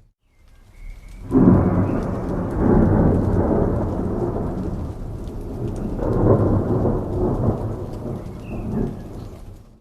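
Thunder rumbling over steady rain. It starts suddenly and loud about a second in, rolls on with a second swell around six seconds, and fades out near the end.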